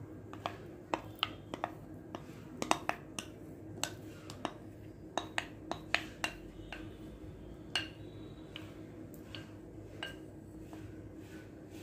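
A spatula clicking and scraping against a bowl as thick batter is scraped out and poured: a string of irregular sharp clicks, one or two a second, over a faint steady hum.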